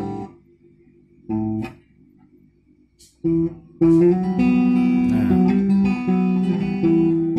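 Acoustic guitar with a pickup, played through a small amplifier: a chord dies away at the start and a second short chord comes about a second and a half in, then steady chord strumming from about three seconds in.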